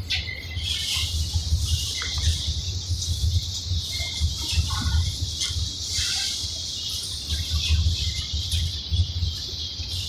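EMD G26MC-2U (CC 202) diesel-electric locomotive's two-stroke diesel engine running with a steady low rumble while charging its air compressor, with a steady high hiss above it.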